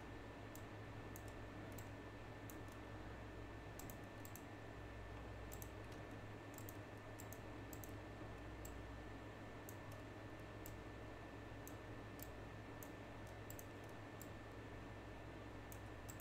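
Faint, irregular clicks of a computer mouse, some in quick pairs, over a steady low hum and hiss.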